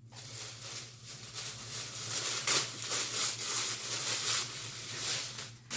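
Paper packing in a box rustling and crinkling continuously as hands dig through the contents.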